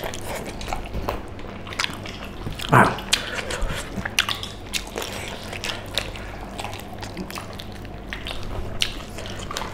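People eating pork leg curry with their hands: wet chewing, lip smacking and biting as meat is torn from the pork legs, a scatter of short sharp clicks and smacks, one louder smack about three seconds in.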